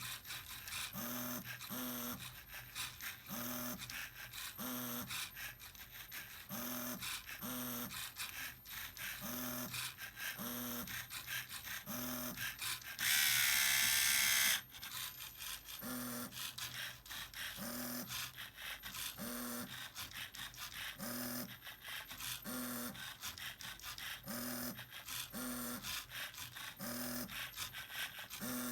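Small electric motors and plastic gearing of a LEGO Mindstorms printing machine running, buzzing and rattling with a low pulse about once a second. About halfway through, a louder, higher motor whine lasts about a second and a half.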